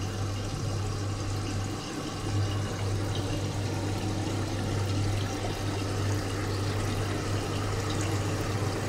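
Steady bubbling and trickling of water in a small plastic fish tub, over a low, steady electric hum from the aeration pump.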